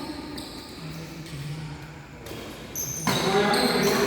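Badminton play in a sports hall: sharp hits of rackets on a shuttlecock, with voices rising and getting louder about three seconds in.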